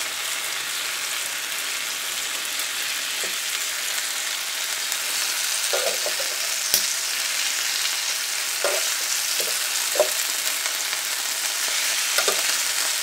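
Marinated chicken legs sizzling on a hot George Foreman electric contact grill, a steady high hiss. A few sharp clicks of a metal spatula on the grill plate as the pieces are turned, the clearest about seven and ten seconds in.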